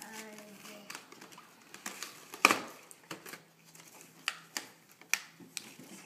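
Plastic and cardboard toy packaging being pulled open by hand: a string of sharp crackles and clicks, the loudest about two and a half seconds in.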